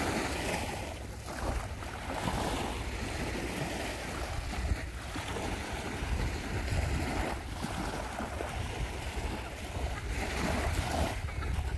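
Wind blowing on the microphone over the steady wash of small waves on open water.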